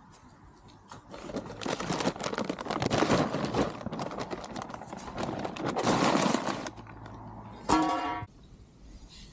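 A brown paper bag crumples and rustles for several seconds as it is stuffed into a perforated metal litter bin. Near the end comes a brief, loud metallic squeal from the bin that cuts off abruptly.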